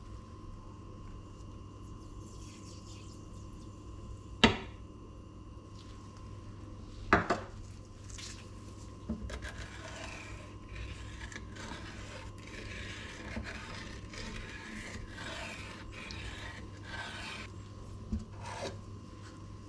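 Silicone spoon stirring milk and sugar in a small saucepan, a steady scraping and swishing against the pan that runs through most of the second half. A few sharp knocks come before the stirring, and one more near the end.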